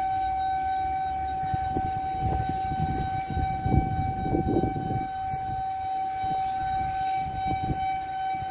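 Hydraulic lift pump motor of a Heli counterbalance stacker whining at one steady high pitch as it raises the forks up the mast, with irregular low rumble and knocks in the middle.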